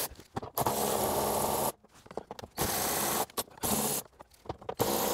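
Cordless electric ratchet running in stop-start bursts of about a second each, backing out 10 mm bolts from a plastic underbody shield.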